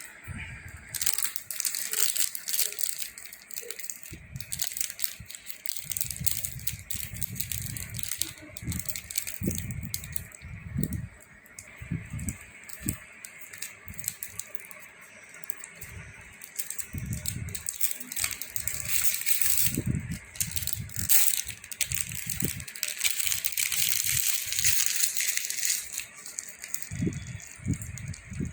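Close-miked ASMR sounds of a hard lollipop being handled and eaten: a steady run of irregular clicks, crackles and rustles with soft low thumps, busiest and loudest in the second half.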